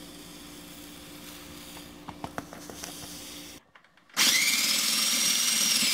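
Electric food processor motor starting about four seconds in and running loud with a steady high whine, chopping frozen orange and lemon pieces with sugar into pulp. Before it, a few small clicks of handling.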